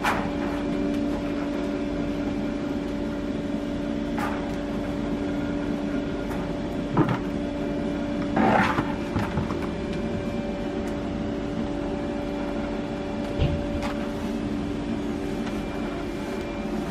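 Rustling and a few brief knocks as a jute sack of dried pulses is opened and handled, over a steady low machine hum.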